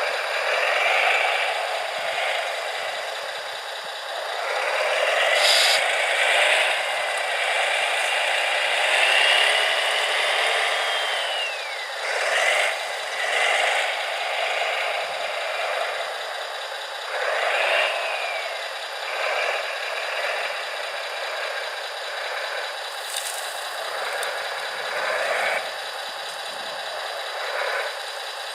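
Small electric motors and gearboxes of radio-controlled construction models whining, rising and falling in pitch several times, with rattling and scraping.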